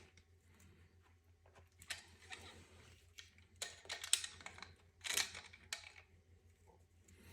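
Faint, scattered clicks and scrapes of a fuel injector and fuel rail being handled and pushed as the injector is worked into place. There is a small cluster of them a few seconds in.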